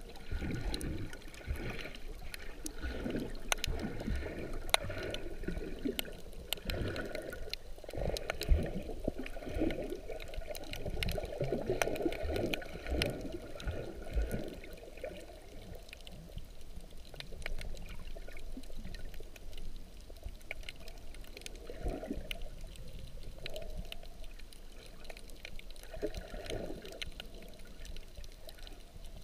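Water sloshing and rushing, heard muffled from underwater, swelling and fading, with scattered faint clicks.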